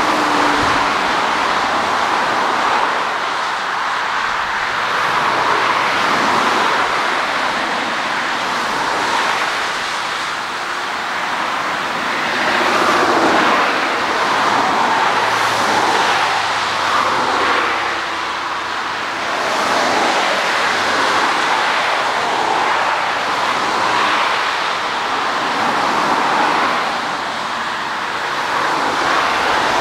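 Twin-engine jet airliner's engines running, a steady loud rushing noise that rises and falls gently in loudness every few seconds.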